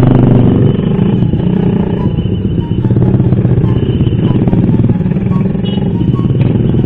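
Small motorcycle engine running at low speed in stop-and-go traffic, a steady throbbing hum, with other motorbikes close by.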